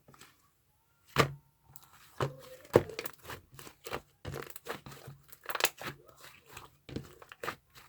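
Close-up crinkling, crunching and clicking from handling and eating food: an irregular run of sharp crackles, starting about a second in.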